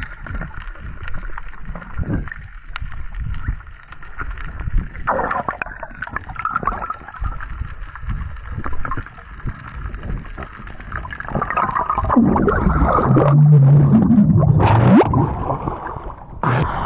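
Muffled underwater gurgling and bubbling with scattered small clicks, as picked up by a diver's camera in the water. It grows louder over the last few seconds, with a rising squeal, and ends in a sudden rush of noise.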